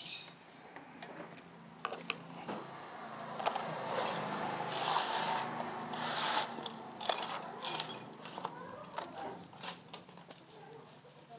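Metal parts and hand tools being handled during a motorcycle repair: scattered clicks and clinks, with a few seconds of rasping, scraping noise in the middle.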